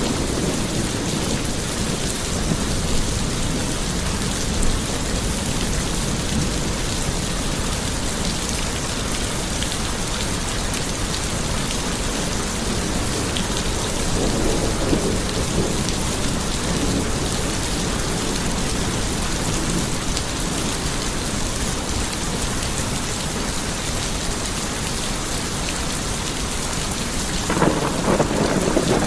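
Steady heavy rain falling, with thunder rumbling in the background. The low rumble swells up about halfway through and again near the end.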